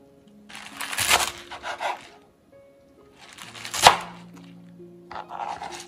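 A chef's knife slicing through a bundle of garlic chives onto a plastic cutting board: three crisp crunching cuts, the second ending in a sharp knock of the blade on the board. Soft background music plays underneath.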